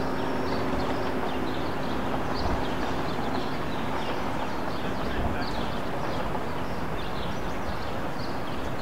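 Steady outdoor city ambience with small birds chirping over and over. The last hum of the church bells fades out in the first second or so.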